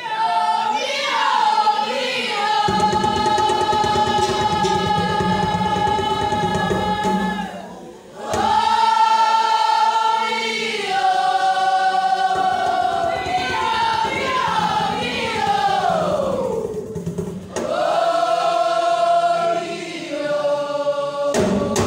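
Choir singing long held notes in slow phrases, with short breaks between phrases about eight and seventeen seconds in.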